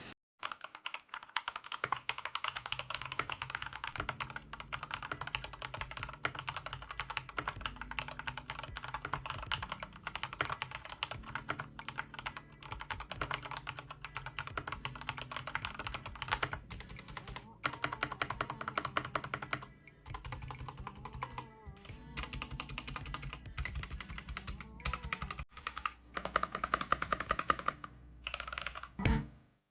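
Keys clacking rapidly on an agio A108 mechanical keyboard in continuous typing, broken by a few short pauses.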